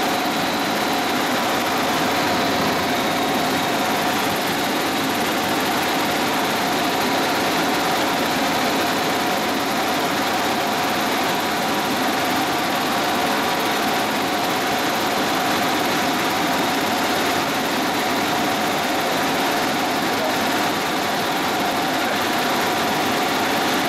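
Helicopter cabin noise in level flight: the engine and rotor make a steady drone under a rushing hiss, with a faint steady whine, all unchanging.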